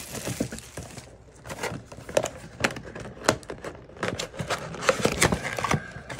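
Plastic shrink wrap crinkling and tearing as it is pulled off a cardboard trading-card box, then the box being opened, with irregular crackles, scrapes and taps of card and cardboard.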